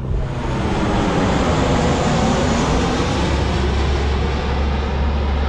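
Twin-engine jet airliner flying low overhead: a loud roar that swells over the first second, then holds steady, over the low drone of the boat's engine.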